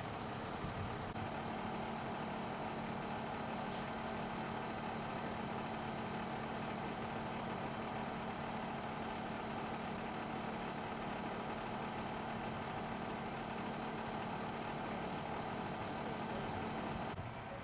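A fire engine's heavy diesel engine idling with a steady low hum.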